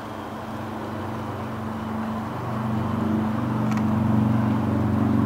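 A motor vehicle's engine running with a steady low hum that grows gradually louder.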